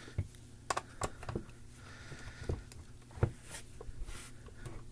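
Scattered light clicks and taps as a screwdriver is set into the screws in the feet of a small metal mini PC and the case is handled, the loudest click a little after three seconds in.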